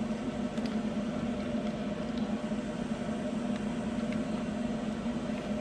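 Steady mechanical hum of a running machine in the room, with a few faint light clicks.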